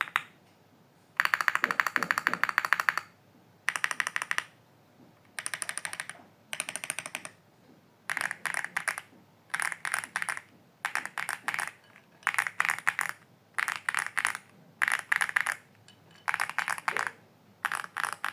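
Computer keyboard being typed on in quick runs of keystrokes, each burst of clicks lasting a second or so with short pauses between, about a dozen runs. The typing sounds thick and stuck.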